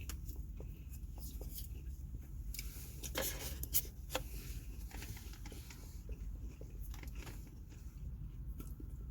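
Close-up eating sounds: chewing and crunching with scattered clicks and crinkling of food wrappers, loudest in a cluster about three to four seconds in, over a steady low rumble.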